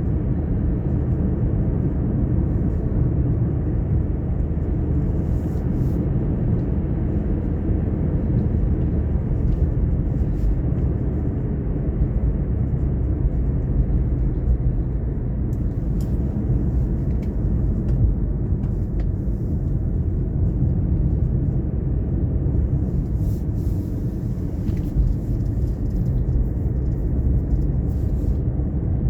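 Car driving at a steady pace: a constant low rumble of road and engine noise.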